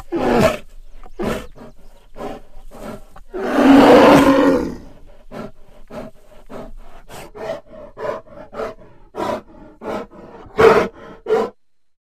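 Designed Utahraptor dinosaur vocalizations, a sound effect built from mixed creature and animal recordings: short separate calls, then one long loud call about three and a half seconds in, followed by a rapid string of short calls and a few louder calls. They stop about a second and a half before the end.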